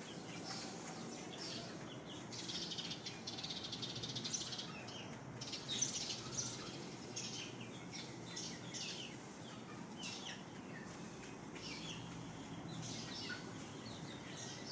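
Small birds chirping: many short, high calls, scattered and overlapping.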